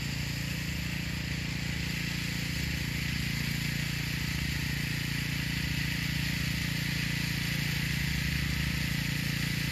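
An engine running steadily off to one side: a low, even hum with a steady hiss over it.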